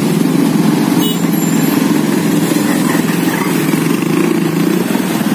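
Slow, dense road traffic close by: motorcycle engines and a dump truck's engine running together in a steady, loud mix.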